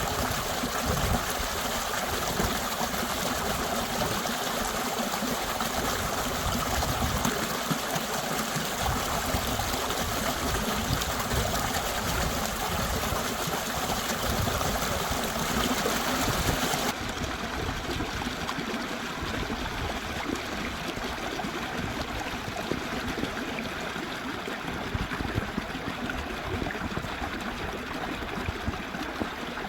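Mountain valley stream flowing, a steady rush of running water. About seventeen seconds in the sound abruptly turns duller and a little quieter.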